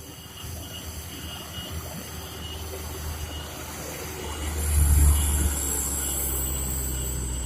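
Diesel engine of a loaded material truck labouring up a steep climb. Its low rumble grows louder as it approaches, peaks about five seconds in, then runs on steadily.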